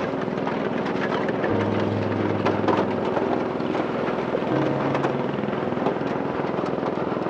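An engine running steadily with a rhythmic chug, with background music.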